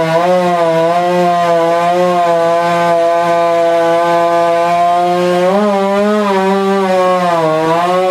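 A large professional chainsaw running at high revs while cutting wood, its pitch sagging and recovering under load, with a brief rise about five and a half seconds in. The owner admits the chain was not sharp.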